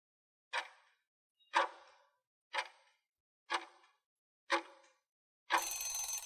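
Countdown-timer sound effect: a clock-like tick once a second, five times, then a short ring as the count reaches zero.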